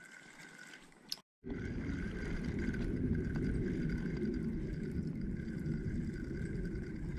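Steady low rumble of wind buffeting the microphone, starting abruptly after a brief cut-out about a second and a half in; the first second before it is quiet.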